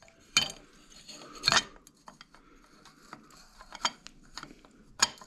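Metal clinks and light scraping from a chainring being handled and offered up to a Bafang mid-drive motor's spindle: a few sharp clicks, the clearest about half a second, a second and a half, and five seconds in, with soft rubbing between.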